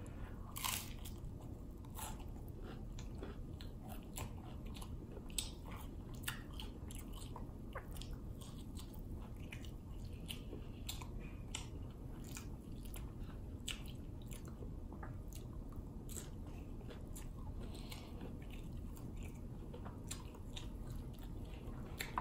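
A man biting into and chewing a crunchy Doritos Locos taco shell, with many short crisp crunches scattered throughout over a steady low background hum.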